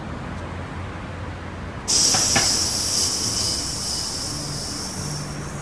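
Loud hiss of rushing air from a hose held to a man's navel. It starts suddenly about two seconds in, with two quick clicks at its start, then fades slowly and cuts off near the end.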